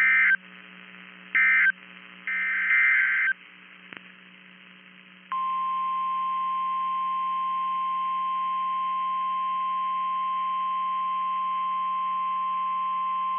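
Emergency Alert System broadcast tones: three bursts of SAME digital data tones, the last one longer, then about five seconds in the steady 1050 Hz National Weather Service alert tone begins and holds. A low mains hum runs underneath.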